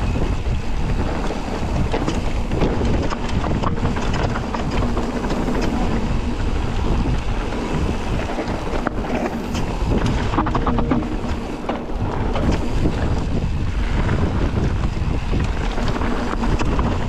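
Wind noise on a mountain bike rider's camera microphone while riding a trail: a constant low rumble with scattered rattles and clicks from the bike over rough ground.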